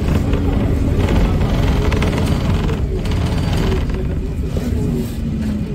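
Old Lisbon line-28 tram running along its street rails, heard from on board: a steady low rumble from the car and its wheels.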